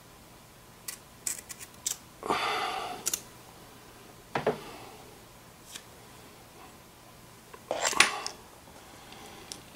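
Blue painter's tape being pulled off the roll and cut with a knife: scattered clicks and short rasping pulls, the loudest near the end.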